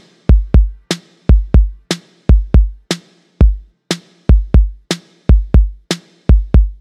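Background music: an electronic drum-machine beat of deep, falling kick drums with sharp clicks on top, roughly three hits a second in an uneven pattern, with no melody.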